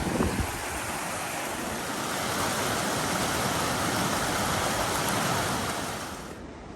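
Strong wind rushing steadily, with gusts buffeting the microphone at the start; the noise cuts off suddenly near the end.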